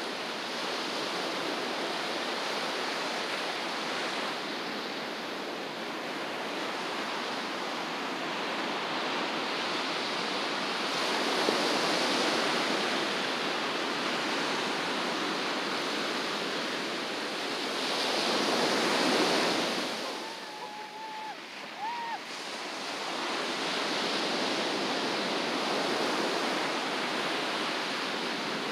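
Ocean surf breaking and washing up the beach, a steady rush that swells with the larger waves about twelve and nineteen seconds in, with wind on the microphone. A faint short whistle-like tone sounds briefly about twenty-one seconds in.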